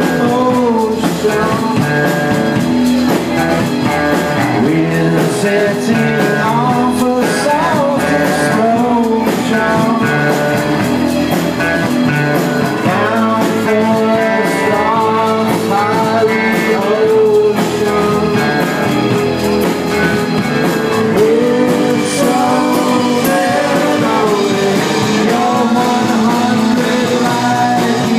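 Live rock band playing: a man singing lead over electric guitars and a drum kit.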